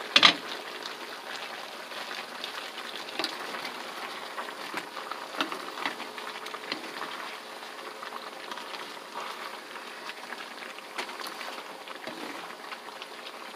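A pan lid is set down with one sharp knock right at the start, then chicken, carrots and potatoes simmer and sizzle in the pan while two wooden spatulas stir them, with scattered light knocks and scrapes.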